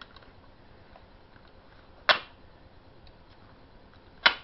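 Two sharp plastic clicks about two seconds apart, with faint small ticks between them, as the plastic retaining straps holding a toy blaster to its card packaging are cut and pulled loose.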